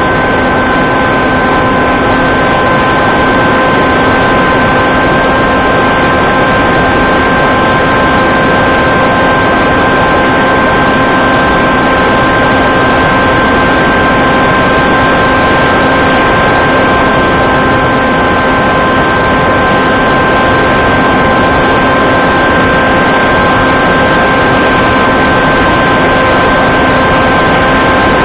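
Small aircraft's motor and propeller running at a steady, unchanging pitch, a constant whine over a rush of wind on the onboard camera.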